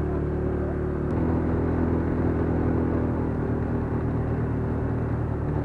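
200 cc quad bike engine running steadily under way, its note shifting abruptly about a second in.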